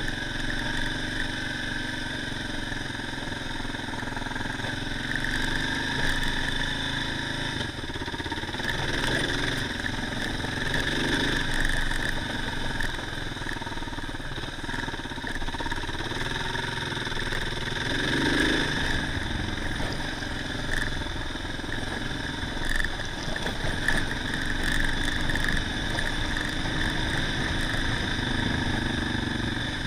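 Adventure motorcycle's engine running steadily while riding along a dirt forest track, with tyre and road noise from the gravel; the engine note swells briefly a few times as the throttle opens.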